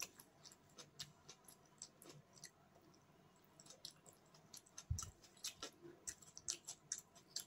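Faint close-up mouth sounds of a person chewing chowmein noodles: many small wet clicks, more of them in the second half, with one soft low thump about five seconds in.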